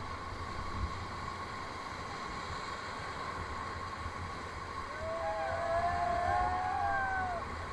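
Whitewater rapids rushing and churning around an inflatable raft. About five seconds in, several long wavering cries from people rise over the water for a couple of seconds.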